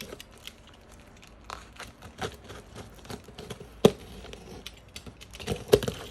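A returned parcel being handled and opened by hand: scattered rustles and small clicks, with a sharp knock about four seconds in and a cluster of knocks near the end.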